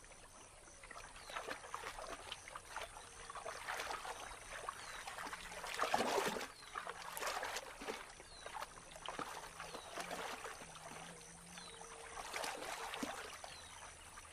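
Water splashing and sloshing as capybaras dig with their snouts in muddy shallows to feed, in irregular small splashes with a louder splash about six seconds in. A faint, short, high chirp repeats about once a second.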